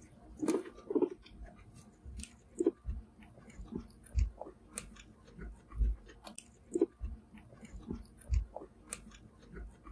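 Guinea pigs chewing fresh potted grass: crisp bites and crunches every second or so, with fine ticking between them as the blades are nibbled off.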